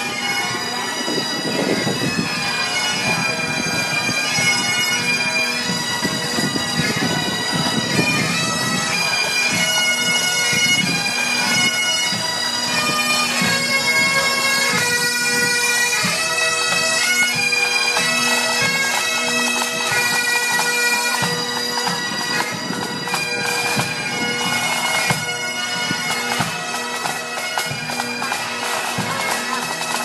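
Bagpipes playing a tune over their steady, unbroken drone.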